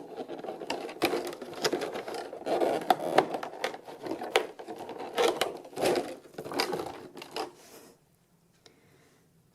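Hands handling a boxed figure's packaging: a dense run of small clicks, scrapes and rustles that stops abruptly about eight seconds in.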